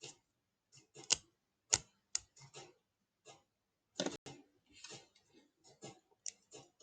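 Hook pick and tension tool working the pin stack of a Zenith 50/78 padlock: a run of small, sharp metallic clicks at irregular intervals as the pins are lifted and set.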